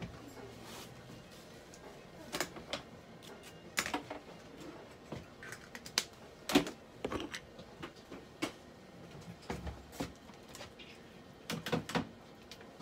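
Irregular light clicks and knocks in a small room, a few scattered across the seconds, the loudest about six and a half seconds in.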